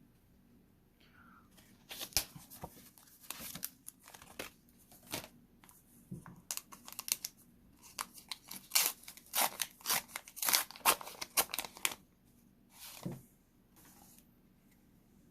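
A sealed Pokémon card pack wrapper being torn open and crinkled by hand: a run of sharp rips and crackles over about ten seconds, densest near the middle, then one last crinkle.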